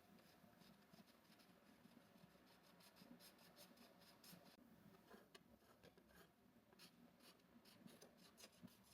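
Faint paintbrush strokes on canvas: many short scratches in an uneven stream as the brush lays on acrylic paint.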